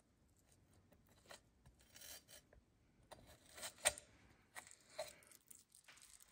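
Knife blade cutting raw turkey and scraping along the breastbone as the breast meat is worked off the bone: faint, irregular short scrapes, the loudest about four seconds in.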